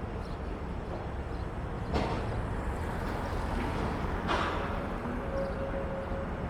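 Steady city street noise with passing traffic, a sharp knock about two seconds in, and a louder rushing burst a little past four seconds followed by a faint, brief steady tone.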